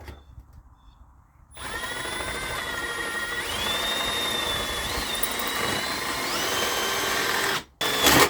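Electric drill boring a bolt hole through the metal of a tin-can exhaust muffler, using a bit that may be a wood bit. The drill starts about one and a half seconds in, its whine stepping up in pitch twice, stops near the end, and gives one brief second burst.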